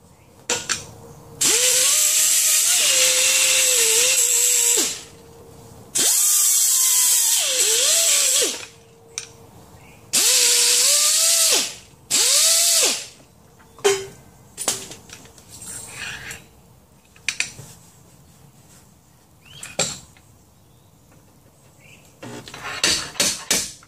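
Hand-held air tool on a shop air hose run free in four hissing bursts, the first about three seconds long and the last two short and close together, its whine rising as it spins up and dropping as it slows. After that, scattered light clicks and knocks of the tools being handled.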